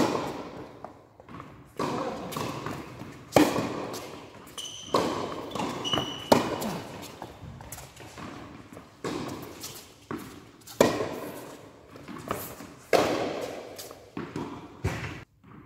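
Tennis ball struck by rackets and bouncing on an indoor hard court, a sharp impact every second or two, each echoing through the large hall. A couple of short high squeaks come about five and six seconds in.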